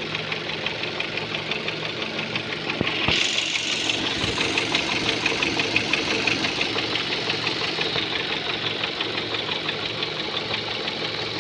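Ford Focus II 1.8 engine running steadily with a rapid, regular knocking. The knocking is the fault the owner is showing. The sound grows a little louder and brighter for about a second, about three seconds in.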